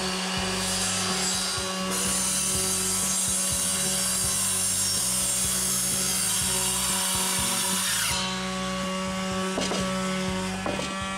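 Bosch electric orbital sander running steadily, its pad rubbing sandpaper over wood. The scratchy sanding hiss is louder from about two seconds in until about eight seconds in, over a steady motor hum.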